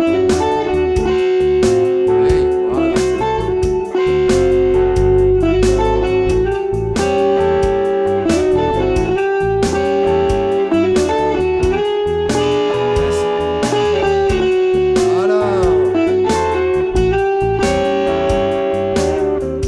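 Electric guitar playing blues double-stop licks over a shuffle blues backing track in A with drums and bass. It holds sustained notes and bends a few notes in pitch near the end.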